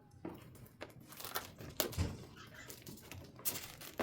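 Plastic packaging crinkling and tearing as a package is cut open with a knife, with irregular sharp clicks and a soft thump about two seconds in.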